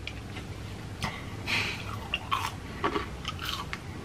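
Biting into and chewing a piece of chicharrón (fried pork) with irregular crunches. The loudest crunch comes about a second and a half in.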